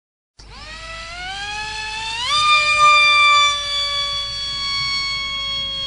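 Small electric RC jet's brushless motor (Don's Wicked 3000 kV) and propeller whining at high pitch: it comes in suddenly, rises, jumps sharply in pitch about two seconds in, then holds a steady high whine that slowly drops in pitch as the jet flies off.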